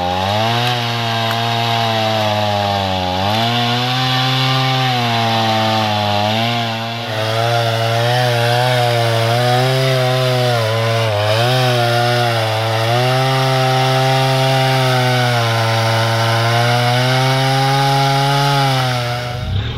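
Two-stroke chainsaw cutting through a fallen tree trunk, running loud at high revs. Its pitch dips several times as the chain bogs down in the wood, then climbs back each time.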